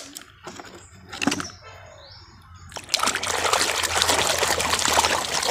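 Hand sloshing and scrubbing a plastic toy in a tub of muddy water: a click and a few small knocks, then steady splashing from about three seconds in.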